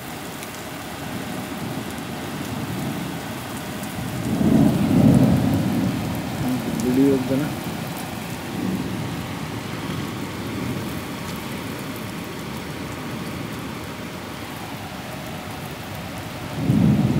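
Rain falling steadily on paving stones and a wet street, with a low rumble of thunder swelling about four seconds in and again near the end.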